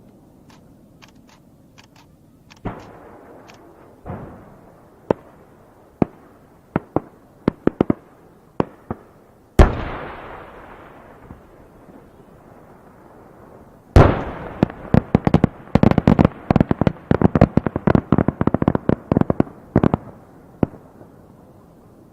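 Aerial shell fireworks bursting: scattered sharp bangs, a loud boom about halfway through with a long fading echo, then another loud boom followed by a rapid run of crackling bangs lasting about six seconds.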